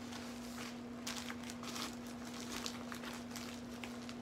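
Paper wrapping crinkling and rustling in short crackles as a parcel is unwrapped by hand, over a steady low hum.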